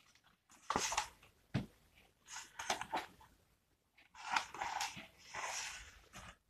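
Soft paper rustles and flaps from a large picture book being lifted, held up and moved by hand, in several short irregular bursts, with a light tap about one and a half seconds in.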